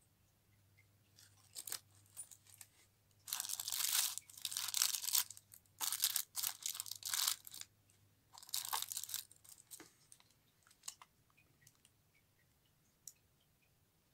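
Dark tissue paper crinkling and rustling in several bursts as a hand moves over it and picks up a charm, with a few light clicks and taps before and after.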